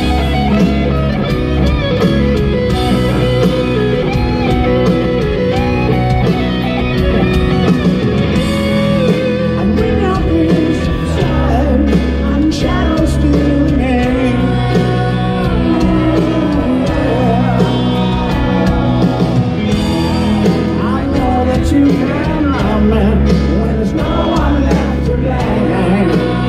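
A rock band playing live at full volume: an electric guitar with gliding, bending notes over piano, bass and drums, with a voice singing.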